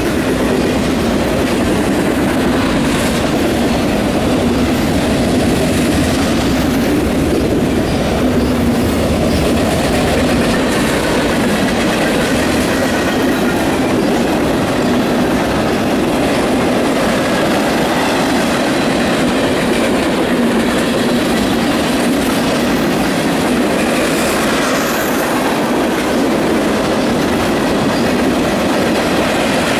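Freight train cars rolling past close by, autoracks giving way to tank cars: a steady, loud noise of steel wheels running on the rails.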